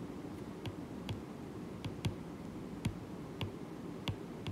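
Stylus tip tapping on a tablet's glass screen during handwriting: a string of light, irregular clicks, about two a second, over faint room noise.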